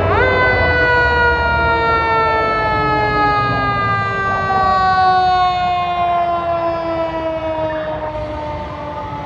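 Fire engine siren: a quick wind-up at the start, then one long wail that falls slowly in pitch, with the truck's engine rumbling underneath.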